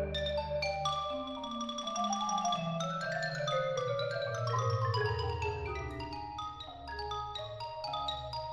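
Solo xylophone playing quick melodic lines over a marimba ensemble accompaniment, with low marimba notes held underneath.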